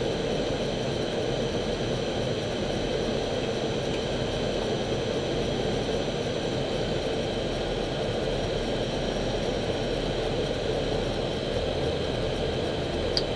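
Steady cockpit noise of an Airbus A319 on final approach: an even rush of airflow and engines with thin steady high tones over it. A small click comes near the end.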